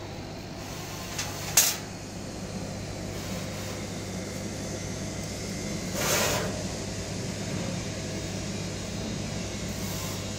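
Steady fan-like machine hum from workshop equipment, with a sharp click about a second and a half in and a brief rush of noise around six seconds in.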